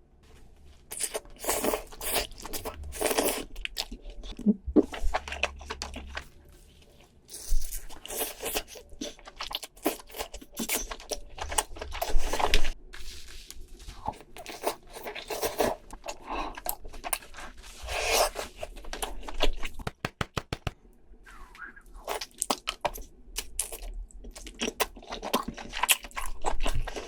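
Close-miked eating of crab: shell cracking and meat tearing, with chewing, as a run of sharp crunches and crackles. A quick rattle of cracks comes about twenty seconds in.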